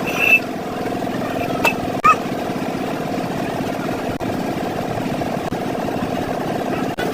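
An engine idling steadily, with a few short sharp knocks in the first two seconds.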